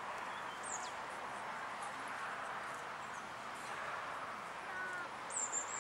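Outdoor ambience: a steady low murmur of spectators' voices, with a brief high bird chirp about a second in and another near the end.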